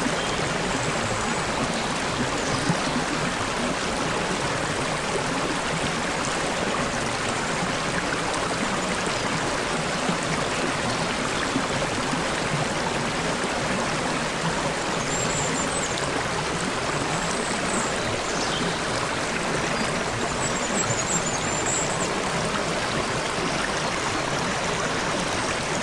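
Stream water babbling and splashing steadily over stones. A few faint, high bird chirps come through in the second half.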